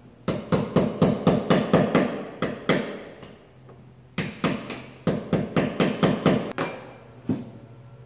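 Hammer blows, about four a second, in two quick runs of about ten with a pause between and a single blow near the end: a pry bar being driven in to lift a square cut-out section of the van's floor board.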